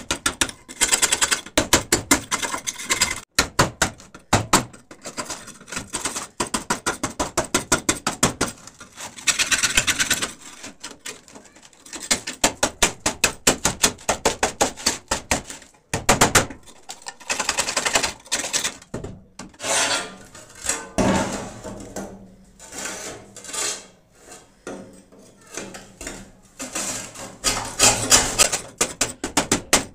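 A metal scraper blade scraping crusted rust and dirt off a rusted steel shovel blade, in quick back-and-forth strokes of several a second that come in runs separated by short pauses.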